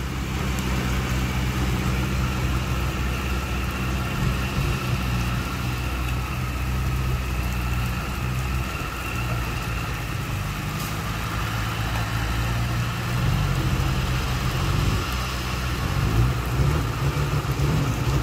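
Heavy construction machine's diesel engine running steadily, a deep low drone, getting a little louder in the last few seconds.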